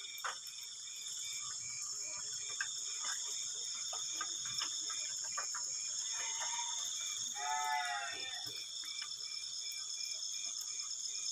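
Night insect chorus: steady high-pitched trilling from several insects, one of them chirping in a regular pulse about three times a second. A brief wavering call cuts in about two-thirds of the way through, with a few faint clicks along the way.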